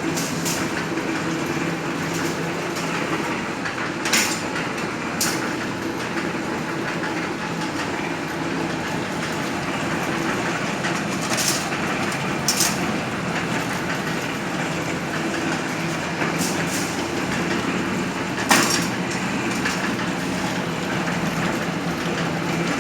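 CNC ring-making machine running steadily as it bends 8 mm wire, with a hum under it and short sharp knocks from the mechanism every few seconds.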